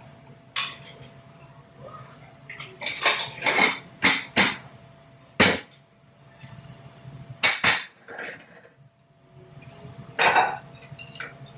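Plates clattering as a stack is taken down from a cabinet and set on a countertop: a series of sharp knocks and clinks, busiest in the middle and with a last clatter near the end.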